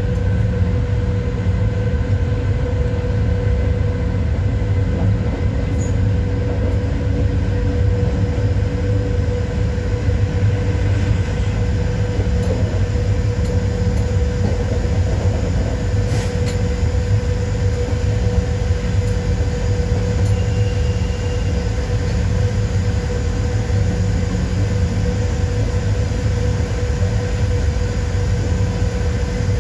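PKP Cargo ET22 electric locomotive running with a freight train, heard from on board: a steady heavy rumble of the wheels on the rails with a constant hum.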